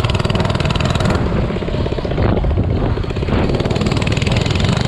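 Minibike engine running steadily with a fast, even putter.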